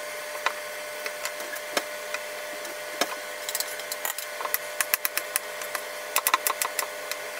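Knife slicing a yellow bell pepper on a wooden cutting board: irregular sharp taps and clicks of the blade and pieces against the board, thicker in the second half, over a steady background hum.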